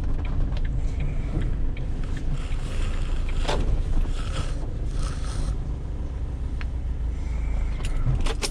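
Van driving: a steady low engine and road rumble with scattered light rattles and creaks, and a few sharper clicks near the end.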